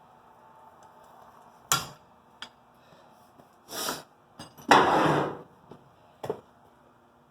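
Metal parts and tools handled on a workbench: a sharp metallic clank, a few small clicks and knocks, and two short rasping noises, the louder and longer one about five seconds in.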